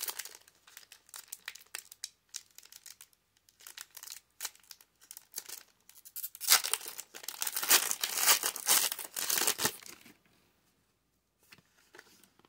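Foil wrapper of a Pokémon Lost Origin booster pack crinkling in the hands in scattered crackles, then torn open in a dense stretch of crinkling and tearing from about six to ten seconds in. Near the end there are only a few faint clicks.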